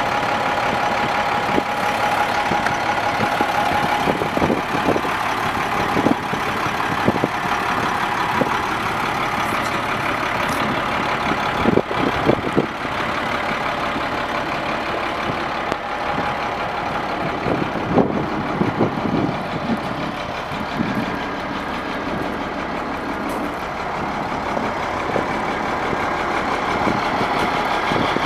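International 4700 dump truck's diesel engine idling steadily, with a few short knocks here and there.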